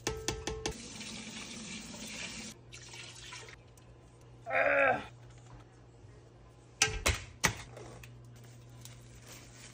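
Rinsed rice and water poured into a pot, then a brief pitched vocal cry about halfway through, and two sharp knocks a half-second apart about seven seconds in, over a low steady hum.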